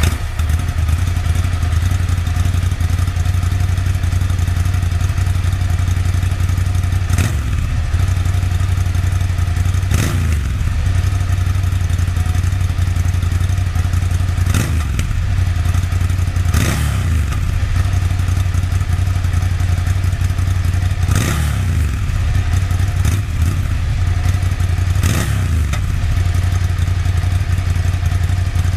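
Ducati Scrambler Café Racer's air-cooled L-twin idling through a Termignoni slip-on exhaust with its baffles removed, giving a deep exhaust note. It is blipped about seven times, each rev falling straight back to idle.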